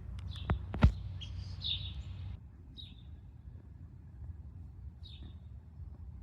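Small birds chirping in short, separate calls, a cluster in the first two seconds and then a single chirp now and then. A couple of sharp knocks come in the first second.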